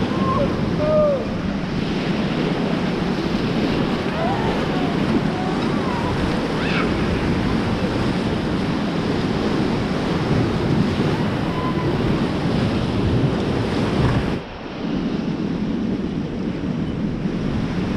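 Fast whitewater of the Beas River rushing and splashing around a raft, a loud steady rush, with wind buffeting the microphone. About fourteen and a half seconds in, the sound abruptly drops and turns duller for a moment.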